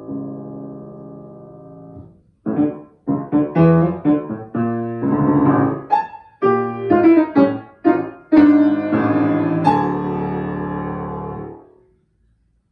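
Grand piano played solo: a held chord dies away, then after a brief pause come loud, accented chords and short figures in quick succession. It ends on a final chord held for about two seconds, which is then cut off.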